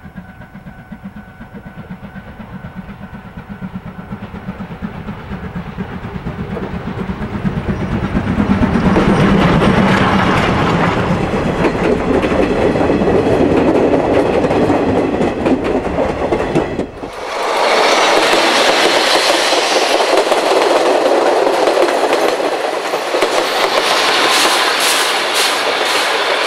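C11 2-6-4 tank steam locomotive and its passenger coaches passing close by: the sound builds as the train comes on, and the coaches' wheels clatter over the rail joints as they go past. It cuts off abruptly about two-thirds of the way through, and then another loud pass of the working locomotive follows, with sharp, regular exhaust beats near the end.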